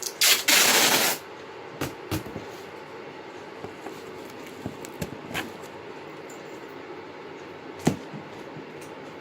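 Packing tape pulled off the roll in one loud rip lasting about a second, as a cardboard box is taped up, followed by a few scattered knocks and taps of handling the box.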